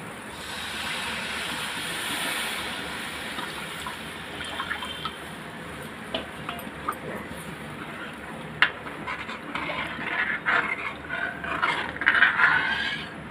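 Water poured into a hot steel kadhai of fried masala, splashing and gushing for the first few seconds as the gravy base is made. Near the end, a steel ladle stirs and scrapes around the pan with metallic clinks.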